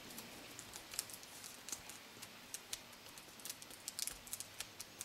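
Faint, irregular small ticks and crinkles of adhesive tape being handled and pressed down over the 40-pin display cable connector on the back of a laptop screen.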